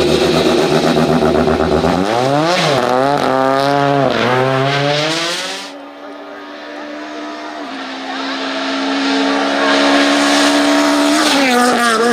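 Rally car engines at speed. First a Peugeot 206 rally car passes close, its engine revving up and down several times as the driver works the throttle through the corner. Then a second rally car is heard approaching from a distance, its engine note steady and growing louder, with a drop in revs near the end.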